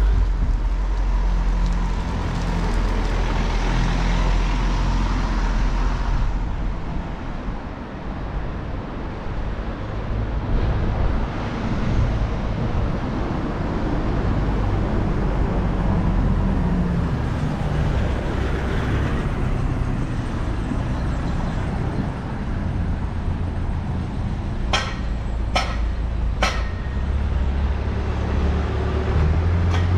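Road traffic: vehicle engines rumbling past on a town street, with three sharp clicks or knocks in quick succession near the end.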